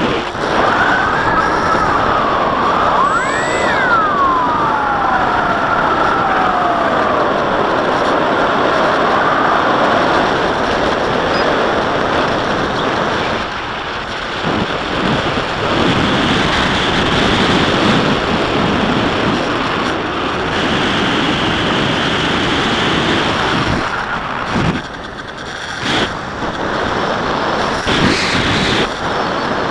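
Onboard sound of a Bixler 3 model plane in flight: the electric motor and propeller whine, sliding up and then down in pitch near the start, over steady wind rush.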